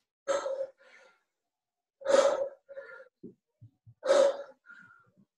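A person breathing out hard during kettlebell swings, a sharp forceful exhalation about every two seconds, each followed by a softer breath.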